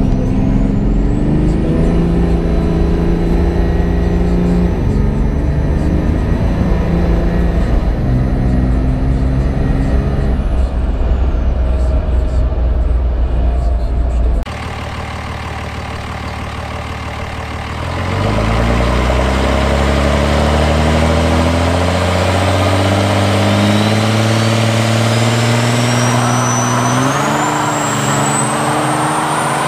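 Dodge Ram Cummins turbo-diesel at full throttle, heard from inside the cab, pulling through the gears: the engine pitch climbs and drops twice at the upshifts. After a sudden change to a quieter steady engine sound, the truck revs up into a burnout, with engine pitch climbing under a rising high whine and a growing hiss from the spinning tires.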